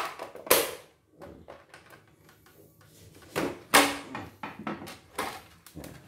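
White plastic outer shell of a CNY E900 portable embroidery machine being pried off its frame: a handful of sharp plastic clacks and knocks as the snap clips let go, the loudest near the start and about four seconds in, with handling rustle between.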